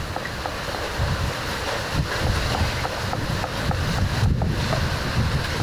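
Wind buffeting the microphone in uneven gusts of low rumble over a steady outdoor hiss, with a faint regular ticking about three times a second.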